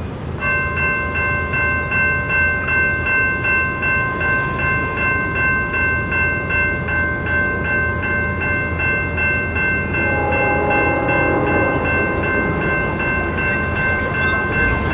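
Railroad crossing warning bells start ringing about half a second in and keep ringing with a quick, even pulse as the crossing activates and the gates come down. From about ten seconds in, a lower sound joins them, which fits the horn of the approaching CSX train.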